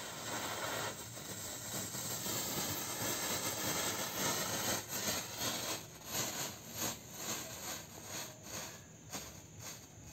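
Moon spinner ground firework burning with a steady fizzing hiss of sparks. About halfway through the hiss starts to pulse two or three times a second, then weakens near the end.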